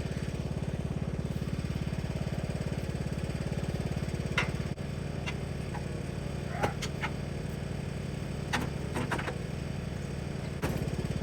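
Riding lawnmower engine idling steadily. Several short sharp clicks and clinks are heard over it, from a hitch pin being worked into the mower's trailer hitch.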